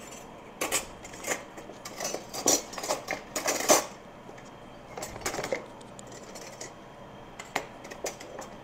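Irregular clinks and knocks of cutlery and dishes being handled, with the loudest knock about three and a half seconds in.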